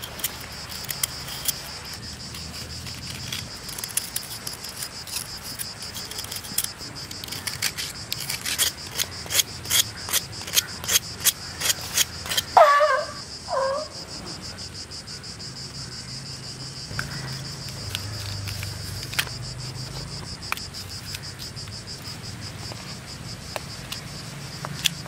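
Insects chirring steadily. In the middle, a knife scrapes a block of jaggery in quick sharp strokes, about two a second, and a short wavering call stands out as the loudest sound, about halfway through.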